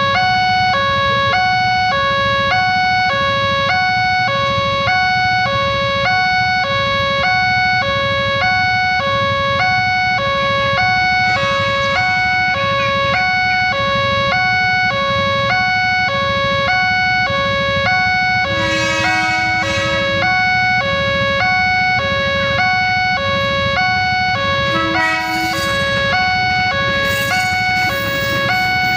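Electronic warning siren of a railway level crossing, alternating steadily between two tones about once a second over a constant higher tone, with a low traffic rumble under it. A horn sounds twice, a longer blast past the middle and a short one a few seconds later.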